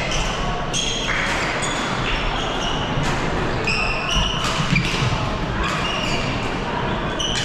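Badminton rally: athletic shoes squeaking again and again on the court mats as players move and lunge, with sharp racket-on-shuttlecock hits and voices chattering across a busy hall.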